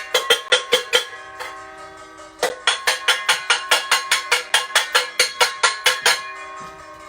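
A bell or other metal noisemaker struck rapidly and repeatedly, about five or six ringing strikes a second; it stops about a second in and starts again a second and a half later for about three and a half seconds. Steady car-horn tones sound in the distance from about a second in.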